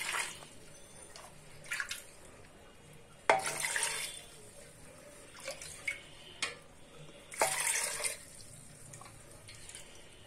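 Water poured from a plastic bowl into an aluminium pressure cooker onto chopped vegetables and lentils, heard as a few short splashes, the loudest about three seconds in and again about seven seconds in.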